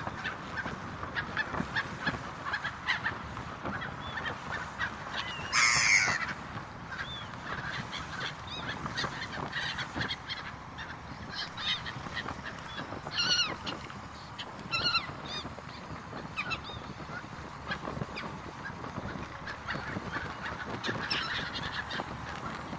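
Gulls calling again and again around a moving passenger ferry, in short squawks, the loudest about a quarter of the way through, over the steady rush of the ferry's engine and water.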